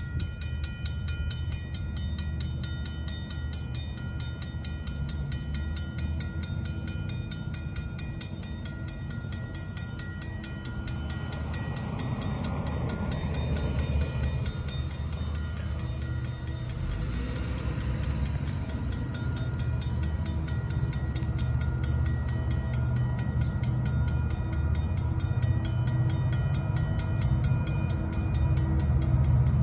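Railroad grade-crossing warning bell ringing steadily as a diesel freight train approaches, its low rumble growing gradually louder. A road vehicle passes near the crossing around the middle.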